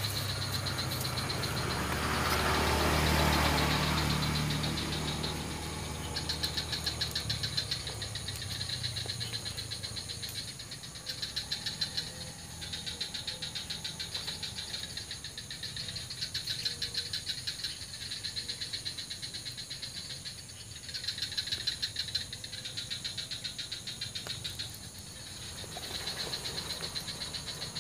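A chorus of calling animals at a tropical swamp: high, rapidly pulsing trills that come in repeated bouts of a few seconds, starting about six seconds in. Before that there is a rustle with a low hum beneath it.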